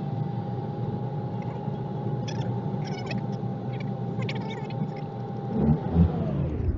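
Car driving, its engine and road noise steady underneath. Over it is a long, steady high-pitched tone that slides up in pitch at its start, holds, then slides down and stops about six seconds in.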